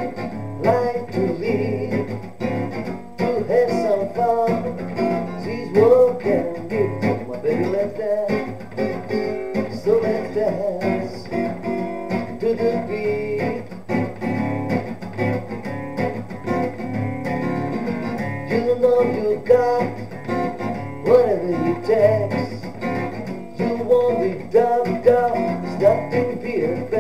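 Steel-string acoustic guitar strummed in a steady rhythm, with a man's voice singing over it, picked up by a webcam microphone.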